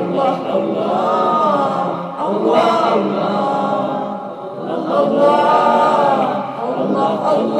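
A man singing an Arabic nasheed in long melodic phrases of about two seconds each, each note drawn out and gliding, with no instruments.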